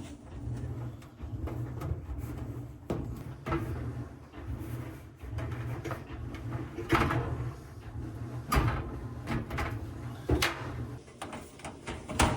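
Knocks, clunks and scrapes of a clothes dryer's sheet-metal panels and parts being handled and fitted back into place, over a low steady hum.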